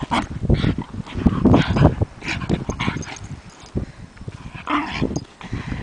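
A border terrier rolling and wriggling on its back on dry, gravelly dirt: scuffing and scraping against the ground in irregular bursts, with small vocal noises from the dog.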